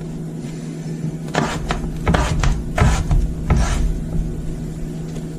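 Long kitchen knife slicing through a raw potato on a wooden cutting board: several short strokes, each a scrape of the blade through the potato and a knock on the board, bunched in the middle of the stretch.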